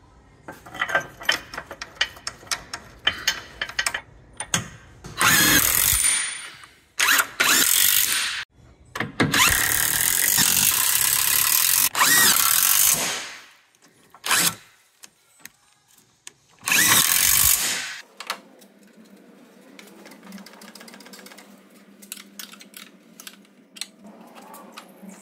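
A power tool runs in several loud bursts of one to four seconds each, driving bolts home during reassembly of a car's front suspension. Rapid clicking of tool work comes first, and quieter scattered clicks of handling follow the last burst.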